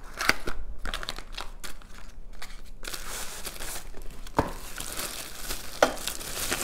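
Plastic wrapping and cardboard packaging rustling and crinkling as items are handled out of a box, with scattered light clicks at first and denser crinkling from about halfway, plus a couple of sharper knocks.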